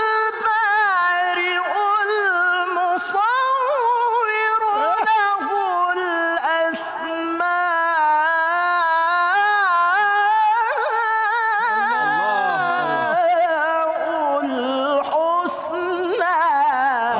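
A male qari's voice in melodic Quran recitation (tilawah), high and drawn out in long held notes with fast ornamental wavering and pitch turns. A second, lower voice sounds briefly about twelve seconds in.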